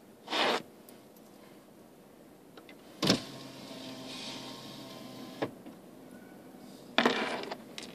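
A small electric motor whirs steadily for about two seconds, starting and stopping with a click. It is framed by two short bursts of noise, one just after the start and one near the end.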